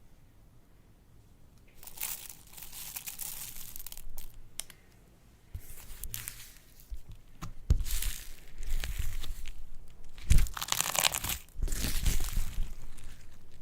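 Slime being worked by hand, making crackly, crinkling noises in several bursts, the loudest near the end.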